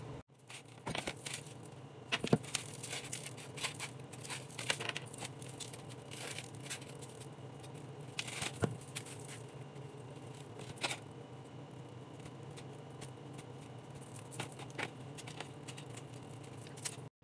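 A table knife scraping as it spreads cream cheese on thin toasted bread, with scattered light clicks, clinks and taps against a plastic plate, over a faint steady hum.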